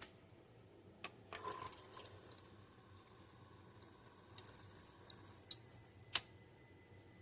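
Light clicks and clinks of small hard objects being handled, one of them ringing briefly for about two seconds, then a quick run of small ticks and a sharper click near the end.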